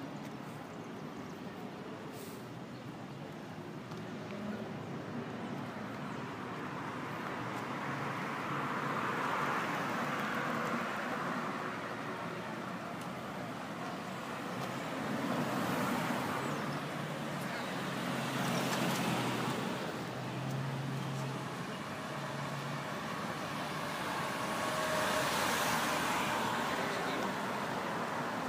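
City street traffic heard from several floors up: a steady wash of passing cars and buses, swelling several times as vehicles go by, with a low engine hum through the middle.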